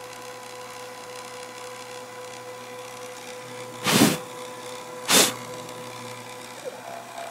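Small CNC router's spindle running steadily while it cuts acrylic, a constant hum with a fixed whine. About four seconds in come two loud, short rushes of noise, a little over a second apart.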